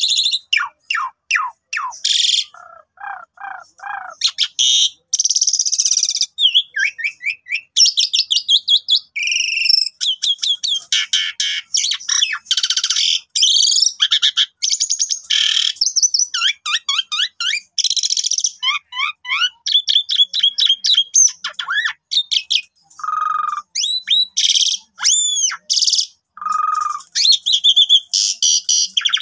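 Javan pied starling (jalak suren) singing a long, loud, varied song with hardly a pause: fast runs of repeated notes, chattering phrases and clear whistles that rise and fall.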